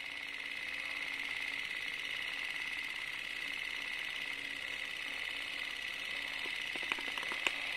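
Film projector sound effect: a steady mechanical whirr, with a few clicks near the end.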